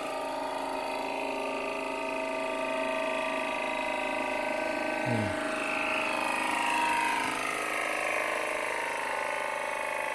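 State D20 20-inch pedestal disc sander coasting with its motor switched off: a steady whir of the freely spinning disc, its loose sandpaper flapping lightly, with a short falling tone about halfway through.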